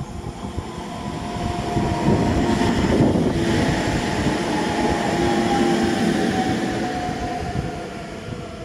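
EN98A electric multiple unit going by on the track next to the platform: the rumble of its wheels on the rails swells as it passes, together with a whine that slowly falls in pitch. The sound eases off as the train moves away.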